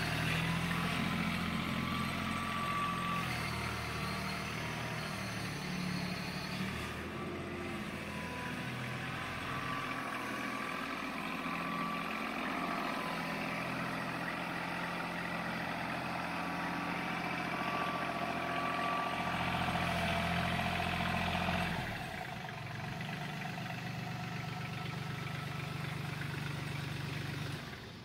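Diesel engine of a Kioti CK4010 HST compact tractor running while the tractor is driven, its note shifting as the engine speed changes; the sound cuts off near the end as the engine is shut down.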